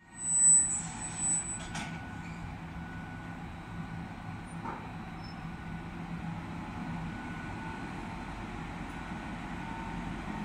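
MÁV V43 electric locomotive rolling slowly along a platform with its coaches, giving a steady hum with a low drone. A brief high-pitched squeal about half a second in is the loudest moment.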